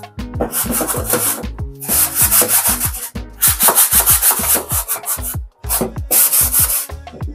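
Scrubbing a white plastic kitchen tray with a scouring pad: quick back-and-forth rubbing strokes in bursts of about a second, with short pauses. Background music with a steady beat plays underneath.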